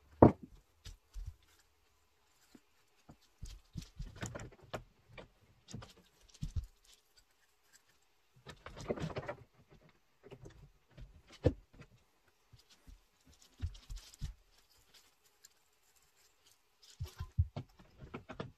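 Scattered knocks, taps and shuffling as a person kneels and moves about inside a wooden whelping box, handling PVC pipe, with brief quiet gaps between. A few knocks stand out, the sharpest about eleven seconds in and another near the end.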